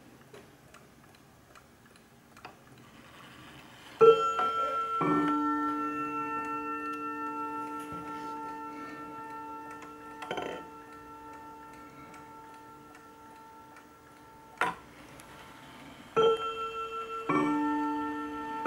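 Wall clock striking a two-tone ding-dong, a higher note then a lower one, that rings out slowly. One pair comes about four seconds in, and further pairs start near the end, as the minute hand is turned by hand past the half hour and on to the hour. Faint ticking comes before the first strike, and a couple of single clicks fall in between.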